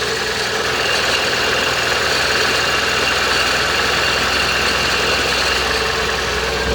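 Nissan Tiida engine idling after a cold start, with a steady whining, rattling noise over it from a worn alternator bearing.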